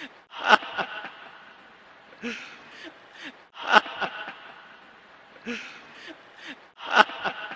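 Heavy panting: loud gasping breaths and short whimpering sounds. The same short sequence repeats about every three seconds.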